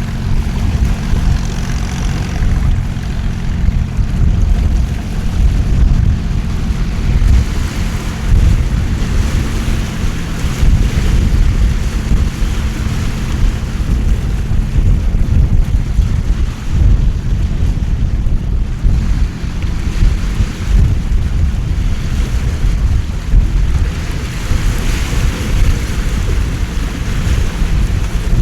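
Heavy rain and gusting wind in a storm, with wind rumbling on the microphone. A faint low engine drone fades out in the first few seconds.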